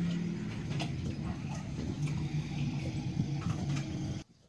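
A motor running with a steady low hum that shifts slightly in pitch, with scattered light clicks. It cuts off abruptly a little after four seconds in.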